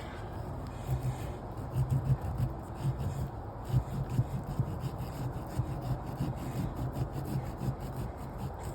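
A blade sawing and scraping into a pumpkin's rind and flesh, an irregular rasping run of strokes.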